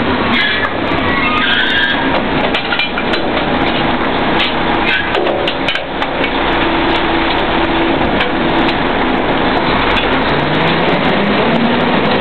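Drilling rig floor while tripping out: the rig's engines and drawworks running loudly and steadily, with repeated metal clanks of the pipe tongs and drill pipe at the rotary table. Near the end an engine tone rises.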